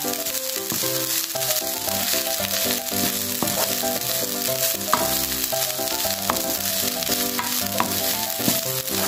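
Cooked rice with garlic and coriander sizzling in oil in a nonstick frying pan as it is stirred and tossed with a wooden spoon, with a few sharp knocks of the spoon against the pan. Light background music plays underneath.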